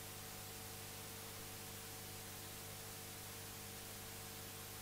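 Faint steady hum and hiss with no distinct events: the background noise of the recording.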